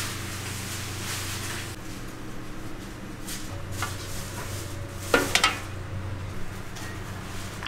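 Cooking utensils knocking and clinking against metal pans and dishes, a few sharp clinks with the loudest cluster a little past five seconds in, over a steady low hum.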